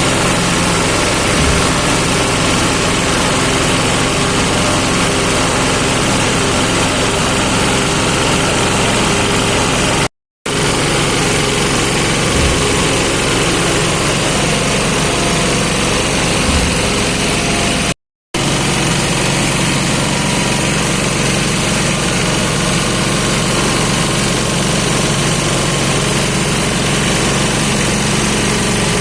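Small livestock feed chopper machine running steadily with a constant mechanical drone. The sound cuts out briefly twice and resumes unchanged.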